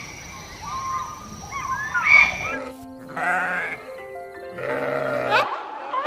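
Bleating livestock calling twice in the second half, each call wavering, over background music.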